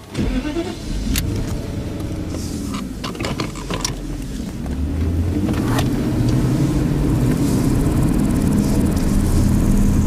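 A Mercedes-Benz convertible's engine starts and runs steadily, with a few sharp clicks in the first half. From about halfway through, the engine sound grows louder.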